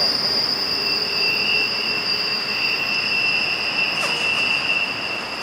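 Norfolk Southern intermodal freight train rolling past, with a steady high-pitched wheel squeal over the rush of the wheels on the rails. The sound drops off somewhat near the end.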